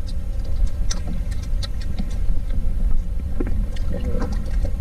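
Steady low rumble of wind buffeting the microphone on a small boat, with scattered small clicks and knocks. A faint voice comes in near the end.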